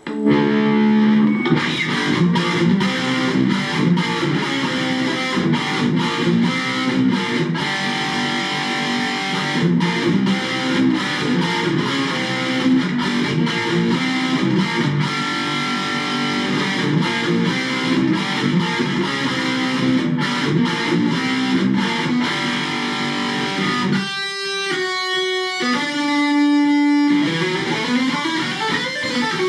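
Electric guitar played through an AMT B1 JFET preamp pedal with heavy distortion, metal-style riffing that starts abruptly. Near the end the riffing gives way to a few separate held notes with short gaps and a sliding pitch bend.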